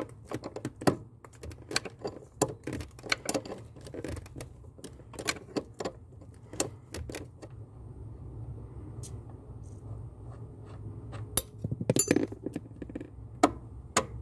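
Metal hand tools clicking and clinking against the clutch pedal linkage as the joint between the clutch master cylinder pushrod and the pedal is undone with a wrench. Irregular sharp clicks, with a quick cluster about twelve seconds in, over a low steady hum.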